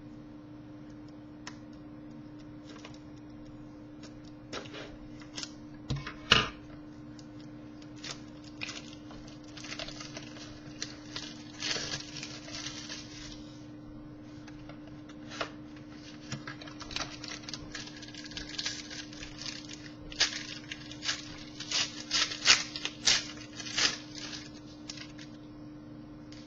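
A box and pack of trading cards being opened by hand: scattered tearing and crinkling of wrapper and card stock, with sharp clicks, busiest in the last third and with one loud click about six seconds in. A steady low hum runs underneath.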